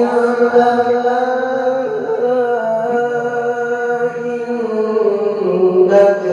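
A male qari reciting the Quran in the melodic tilawah style, holding a long ornamented phrase that steps down in pitch and pauses briefly for breath near the end.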